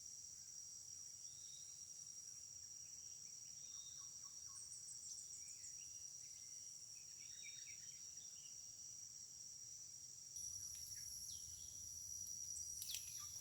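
Faint, steady high-pitched drone of insects, with a few faint bird chirps scattered through it; about ten seconds in a second, even higher insect drone joins.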